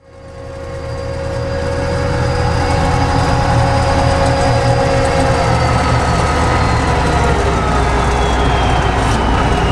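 Kirovets K-700A tractor's diesel engine running, heard from inside the cab: a steady low drone with a thin high whine over it that slowly drops in pitch in the second half. The sound fades in over the first two seconds.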